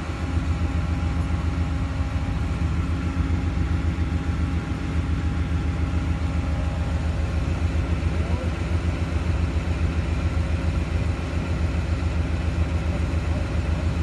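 A vehicle engine idling steadily, with an even low throb.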